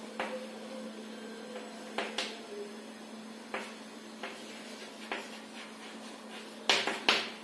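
Chalk tapping and scraping on a chalkboard while a word is written, a series of short sharp taps with the two loudest near the end, over a steady low hum.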